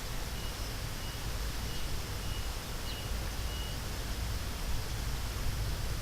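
Steady outdoor background noise with a low rumble. Over it, a row of short, even high pips comes about one and a half times a second and stops a little past halfway.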